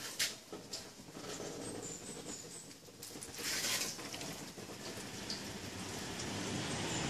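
Plain water sprayed onto waxed car paintwork and pattering off the surface: a brief spray just after the start and a longer hissing spray around three and a half seconds in. A low rumble builds near the end.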